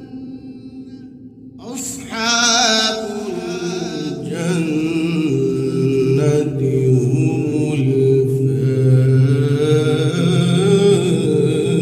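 A man reciting the Quran in the melodic tilawat style, with long ornamented phrases. After a short pause he starts again with a rising phrase about two seconds in.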